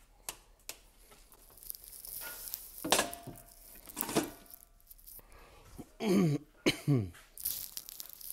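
A man coughs twice, short and close together about six seconds in. Before that come a few knocks and rustles of things being handled.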